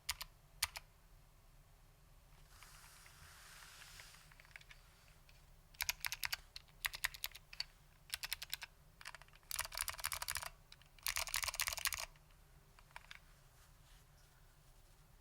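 Typing on a foam-damped Lunar AEK 65 mechanical keyboard with clicky SKCM Blue Alps switches and ABS doubleshot keycaps. A few separate keystrokes open, then fast runs of clicky typing come in the middle and thin out near the end.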